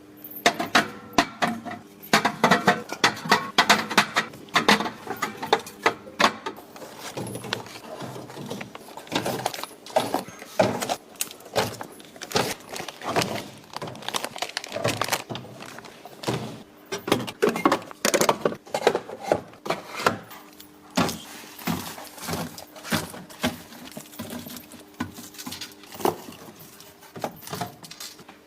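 Groceries being put into a refrigerator: a busy, irregular run of knocks, clinks and rattles as packets, bottles and containers are handled and set down on shelves.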